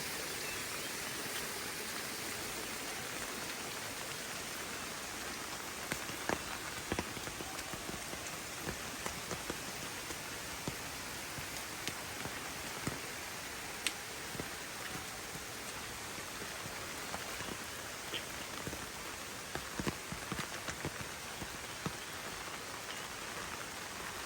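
Steady hiss of falling or running water, with scattered sharp ticks like drops or splashes.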